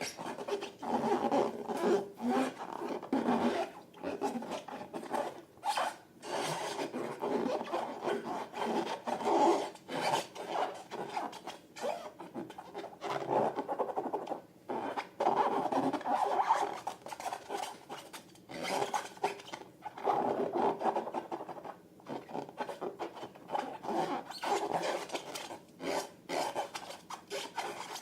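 Hands rubbing and squishing rubber balloons and slime, an irregular run of short rubbing and squelching strokes with brief pauses and a few sharp clicks.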